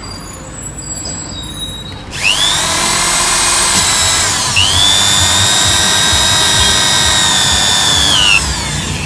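Electric drill running for about six seconds: it spins up about two seconds in, dips briefly in pitch and recovers, holds a steady whine, then winds down near the end.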